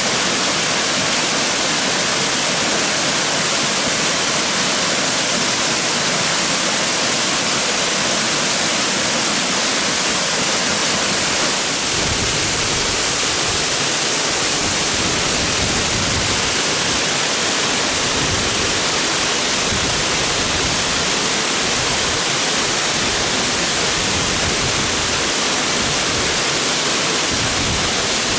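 Waterfall rushing: a loud, steady hiss of falling water. About twelve seconds in, an uneven low rumble joins it.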